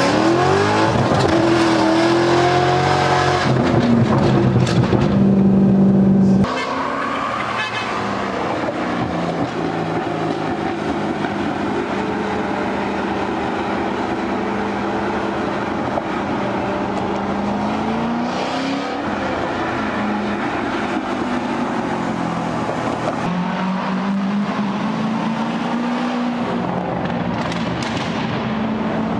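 Corvette C5's 5.7-litre V8 revving hard as the manual car launches, its pitch climbing, dipping at a shift and climbing again. About six seconds in the sound drops abruptly to a quieter, steady engine note that slowly rises and falls as the car drives on.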